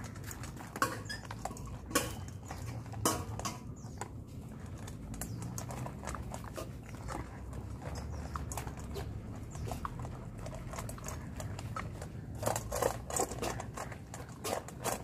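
Dogs chewing dry kibble, heard as scattered crisp crunches and clicks that come thicker about twelve seconds in, over a low steady hum.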